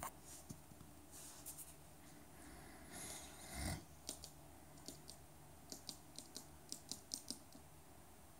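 Rainbow lorikeet's claws clicking on a hard floor as it walks: a few scattered taps, then a quick run of about a dozen sharp clicks near the end. A louder soft rustle with a low thump comes about three and a half seconds in.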